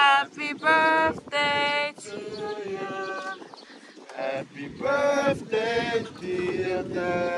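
A group of men's and women's voices singing a slow song in drawn-out notes, without instruments.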